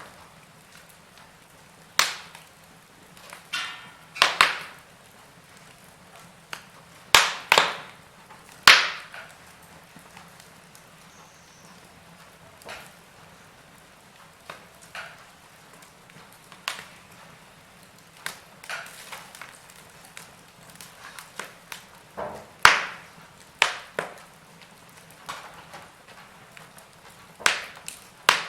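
Logs burning in a fireplace and crackling: irregular sharp pops and snaps over a faint steady hiss, with a quieter middle stretch of only small ticks.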